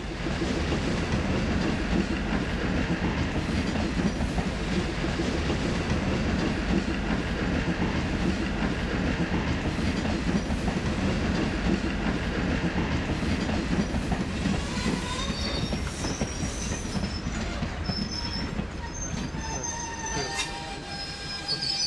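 Passenger train running on the rails, a steady loud rumble of coaches and wheels, with high-pitched wheel squeals coming in from about two-thirds of the way through.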